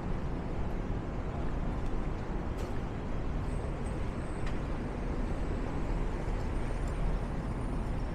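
Street traffic noise: a steady low rumble of passing vehicles, with a couple of short clicks and a faint thin high whine in the middle.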